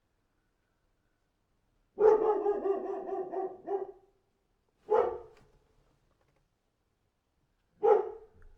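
A dog calling: one drawn-out pitched call about two seconds long, then two short barks about three seconds apart.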